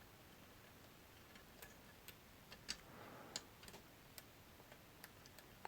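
Faint, irregular small clicks of a lock pick and tension tool working the pins of a Medeco Duracam cylinder, about a dozen scattered over a few seconds, the loudest a little under halfway through.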